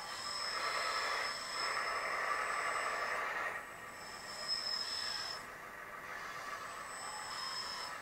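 Electric drive of a 1:14 scale metal RC articulated dumper whirring as it drives and steers. It is louder for the first three seconds or so, then softer, with a thin high electronic whine that drops out twice.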